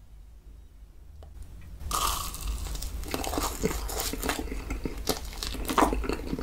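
Close-miked eating of toasted marshmallows from a skewer. About two seconds in comes a bite, then chewing with many small crackles and wet clicks.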